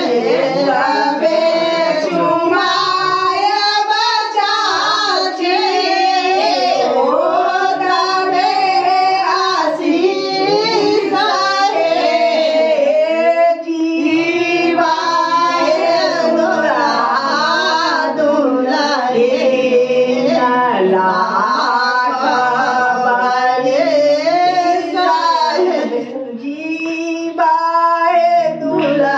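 Several women singing together, a song with held and bending notes that carries on without a break.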